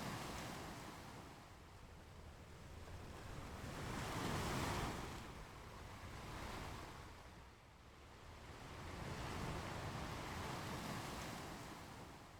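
Sea waves breaking and washing up a beach, rising and falling in slow surges every few seconds, the loudest about four and a half seconds in.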